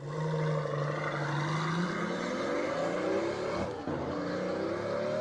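Pagani Huayra BC's twin-turbo AMG V12 engine accelerating, its pitch climbing steadily, with a brief dip about three and a half seconds in before it climbs again.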